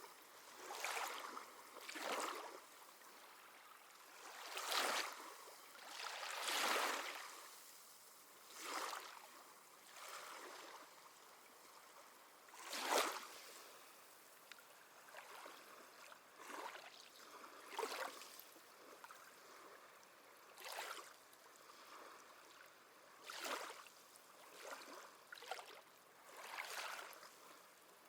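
Small sea waves lapping on the shore in short, irregular surges, one every second or two, over a faint steady wash.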